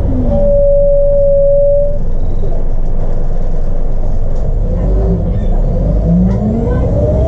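Cabin sound of a Scania L94IB bus under way: its 9-litre six-cylinder DC902 diesel running with a low rumble, and a whine from the drivetrain that holds one pitch for about two seconds, then rises in pitch from about five seconds in as the bus accelerates, the kind of whine the ZF 5HP500 automatic gearbox is known for.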